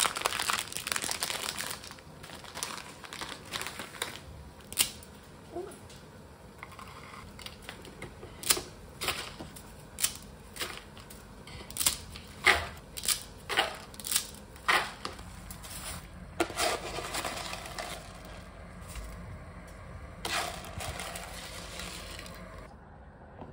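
Rustling and crinkling, as of packaging being handled, with about a dozen sharp, irregular clicks or taps between roughly five and fifteen seconds in.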